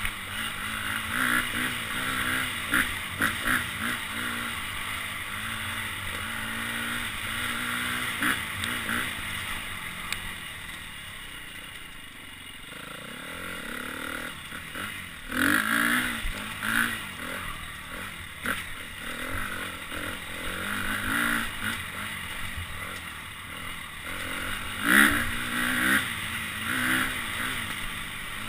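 Dirt bike engine revving up and falling back again and again with the throttle, its loudest revs about 15 s and 25 s in, with occasional knocks from the bike over rough, rocky ground.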